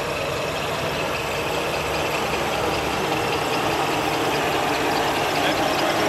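Engine of a WWII-era British Army truck running at low revs as it drives slowly toward the microphone, growing slightly louder.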